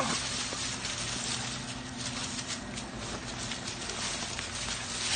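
Dry fallen leaves rustling and crunching under footsteps and dogs' paws in an irregular run of crackles, over a low steady hum.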